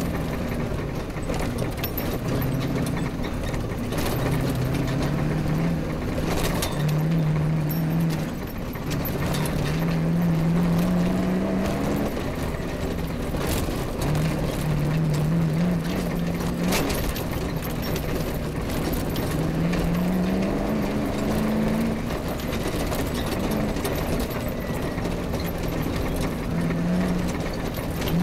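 Off-road rally vehicle's engine under hard driving, its note repeatedly climbing in pitch and then dropping as it runs up the revs and changes gear, over a continuous rushing noise, with a few sharp knocks from the rough ground.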